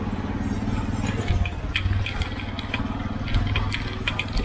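Bicycle riding along a rough street: a steady low rumble with rattling and clicking from the bike.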